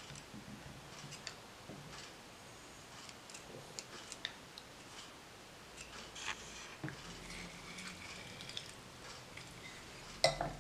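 Faint, scattered light clicks and taps of a kitchen knife working lime halves on a wooden cutting board, picking out the seeds. Near the end, a louder clack of a metal hand lime squeezer being closed on a lime.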